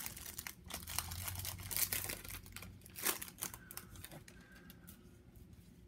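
A trading-card pack wrapper being crinkled and torn open and cards handled, a dense run of crackles and clicks for about four seconds that then dies down to faint rustling.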